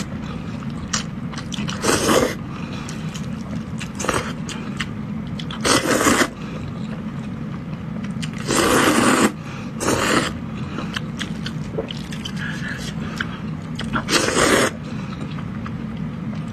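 Close-miked eating: corn noodles in zhajiang sauce slurped in about six loud, short pulls, with quieter chewing between them.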